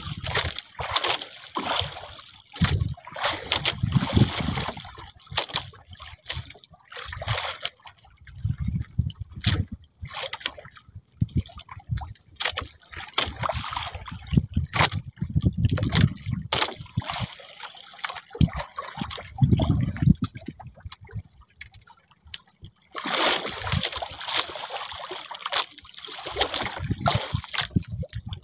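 Water splashing and sloshing in irregular surges, with scattered knocks.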